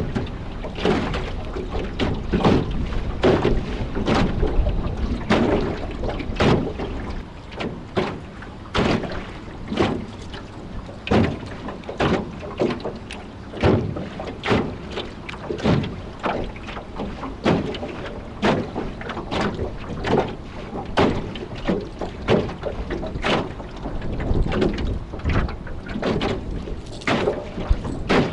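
Rough, wind-driven waves slapping against a small floating fishing craft in irregular splashes, about one or two a second, with strong wind buffeting the microphone underneath.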